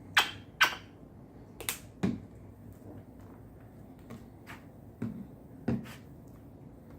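A run of sharp little clicks and pops, about six over several seconds, a few with a soft thump, as red acrylic paint is squeezed from its bottle onto fluffy slime.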